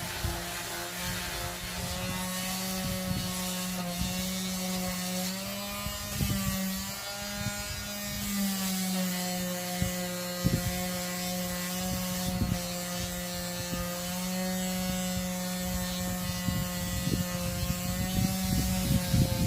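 Electric sander running against wood, its motor humming steadily with the pitch sagging and recovering as it is pressed, over scraping and occasional knocks of the tool on the wood.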